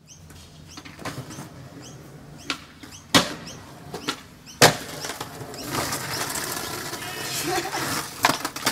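Skateboard on concrete steps: sharp clacks and knocks of the board and wheels hitting the steps, with the loudest slap of a landing about four and a half seconds in, followed by a few seconds of wheels rolling. Voices come in faintly, with more knocks near the end.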